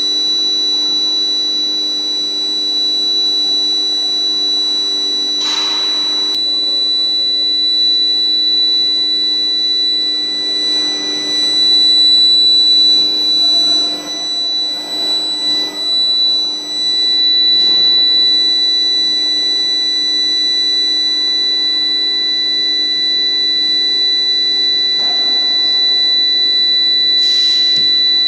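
Induction heating furnace running, giving off a steady high-pitched electrical whine over a lower hum. A couple of brief noises break in about five seconds in and near the end.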